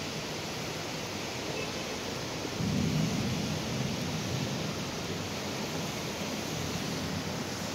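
Steady hiss of rain and tyres on a flooded street. About two and a half seconds in, a low rumble rises and fades as a car drives through the standing floodwater.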